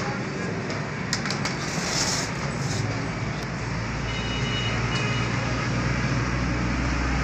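Road traffic noise, with a vehicle engine's low hum growing louder from about three seconds in.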